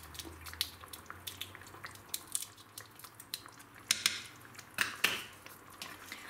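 Thick tomato-and-vegetable sauce simmering in a frying pan with small irregular pops, and scissors snipping a hot chili pepper into it. A few louder clicks come in the second half.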